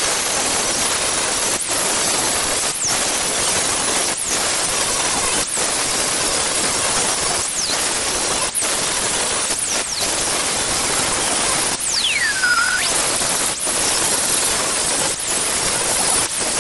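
Angle grinder disc grinding the mild steel of a bar-stock anvil, shaping its horn. The grind is a loud, steady hiss that dips briefly about every second and a half, with a few short falling whistles.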